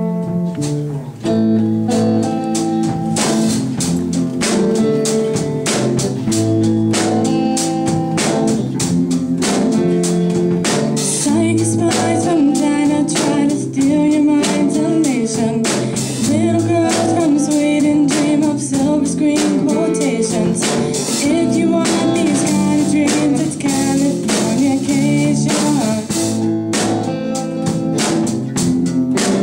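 A rock band playing live, with guitar and a drum kit that comes in about a second in. A wavering melody line rides over the band from about ten seconds on.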